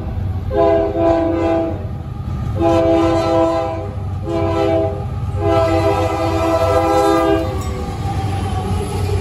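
Union Pacific freight locomotive's air horn sounding in a horn show: four blasts, two long ones, a short one and a longer last one, over the steady low rumble of the approaching diesel locomotives. After the last blast the locomotives pass close by at speed.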